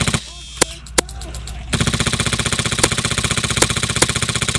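Airsoft Stoner light machine gun on a Polarstar F2 HPA engine firing full auto as a fast, even stream of shots. It fires briefly at the start, stops for about a second and a half apart from a few single shots, then fires a long sustained burst from about 1.7 s in.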